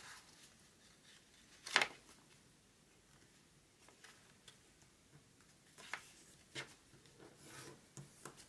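A sheet of paper being folded and creased by hand on a cutting mat: quiet rustling of the paper, with one louder click about two seconds in and a few softer clicks later.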